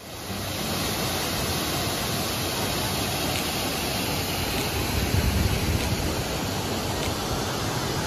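Steady rush of water flowing over rocks in a shallow river.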